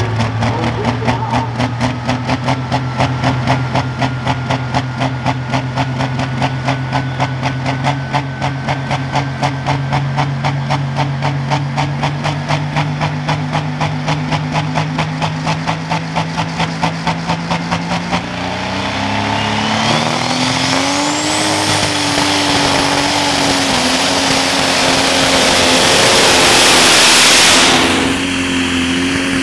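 Pro Stock pulling tractor's turbocharged diesel engine running with a rapid, even pulsing lope that rises slowly in pitch. About 18 seconds in it revs up to a higher, louder note as the pull starts, and a whistle climbs in pitch over it. The loud run cuts off sharply near the end.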